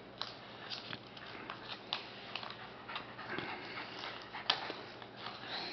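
Faint crackling and rustling of a paper card envelope as small hands pick and tear at it, in many small scattered clicks; it is hard to get open.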